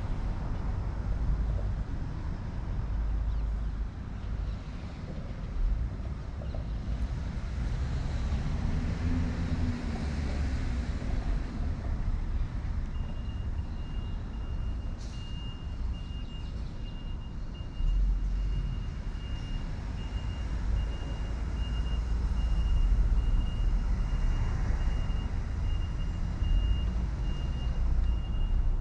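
A vehicle's reversing alarm beeps steadily and evenly from about halfway through, over a low steady rumble of city vehicles.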